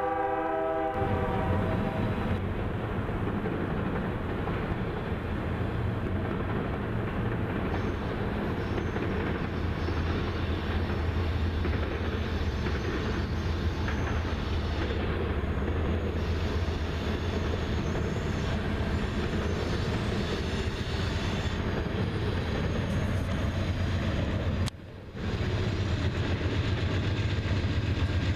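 A diesel locomotive horn sounds a chord that ends about a second in. Then freight trains run past: the steady low drone of diesel locomotives under the rumble of wheels on rail, with a brief drop about 25 seconds in.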